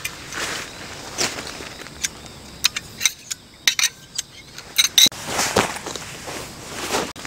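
A run of short, sharp clacks as the sections of a tarp pole are pulled apart and folded together, among soft footsteps and shuffling on grass. Near the end, a tent peg is worked loose from the turf.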